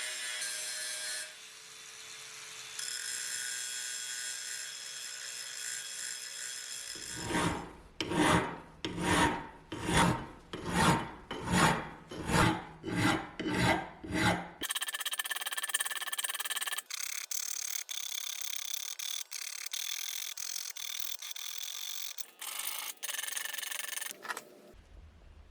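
A hand tool worked back and forth with about ten loud rasping strokes, roughly one and a half a second, in the middle of the stretch. Before and after it comes steady hissing noise.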